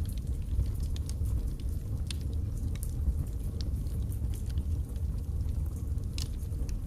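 Birch logs burning in a fireplace: a steady low rumble of the flames with scattered sharp crackles and pops, one louder pop about six seconds in.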